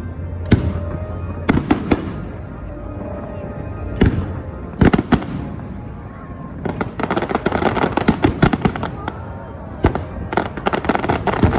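Fireworks display: aerial shells bursting in sharp, separate booms, then about seven seconds in a dense run of crackling and popping from many bursts at once.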